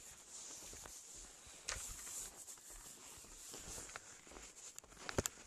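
Faint footsteps on packed snow, with a sharp click about a second and a half in and another near the end.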